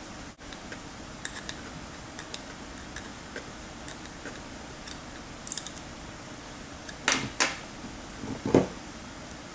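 Light metallic clicks and clinks of a small brass fitting being handled and fitted into a plastic housing, then two louder knocks and a dull thud near the end as the housing is moved against the workbench, over a steady low hiss.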